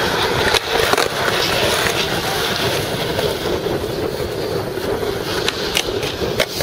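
Skateboard wheels rolling on smooth concrete, a steady rumble with a faint hum, broken by a few sharp clacks, with a louder knock near the end as the board meets a concrete ledge.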